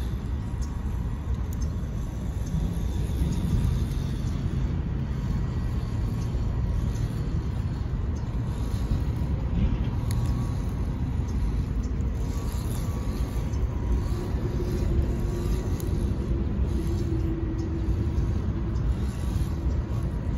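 WPL C34 RC crawler's small electric motor and gears whining, the pitch wavering as the throttle changes, over a steady low rumble.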